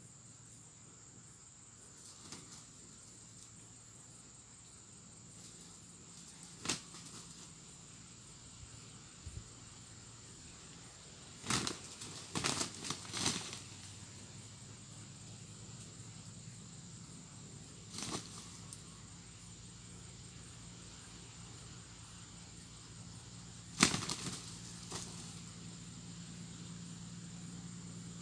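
Roosters fighting: short bursts of wing flapping and scuffling at irregular intervals, several in quick succession about halfway through and the loudest near the end.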